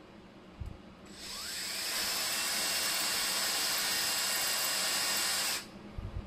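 Cordless drill with a twist bit drilling out a rivet on an old instrument-gauge movement: the motor winds up about a second in, runs steadily for about four and a half seconds, then stops abruptly. A few light handling knocks follow.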